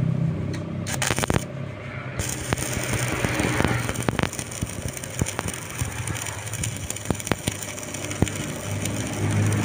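Stick (arc) welding on a steel hammer head: the arc crackling steadily as the electrode burns, after a few sharp clicks in the first second or so.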